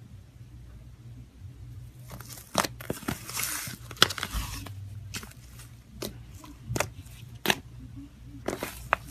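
Slime being squeezed and worked by hand: after a quiet start, a crackling, crinkly stretch and then a series of sharp pops and clicks as air pockets burst.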